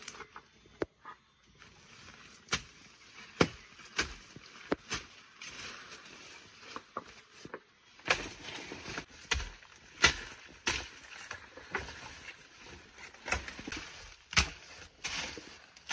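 A series of sharp knocks at irregular intervals, roughly one every second, with rustling between them.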